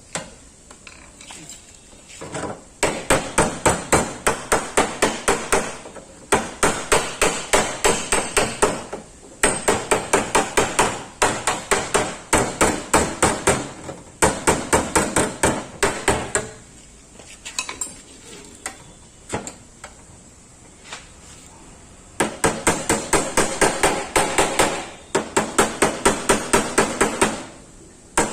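Hand hammer beating out dents in a Maruti 800's sheet-metal body panel: rapid metallic blows, about five a second, in runs of a few seconds with short pauses between.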